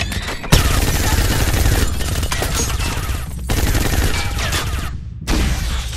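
Film action-scene sound: long bursts of rapid automatic gunfire, with bullets striking a car. It starts about half a second in and breaks off briefly twice, the second time near the end.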